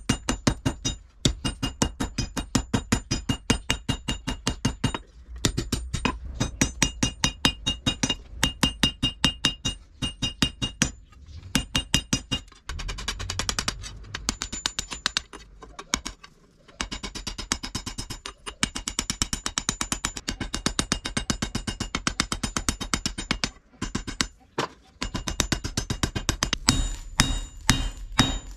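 Hand hammer striking red-hot car-spring steel on an anvil in quick, steady blows, about three to four a second, each with a bright metallic ring. The hammering stops briefly a few times.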